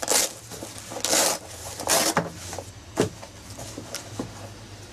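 Fabric carrying case being opened by hand: three short scratchy rasps as the flaps are pulled apart, then one sharp click about three seconds in.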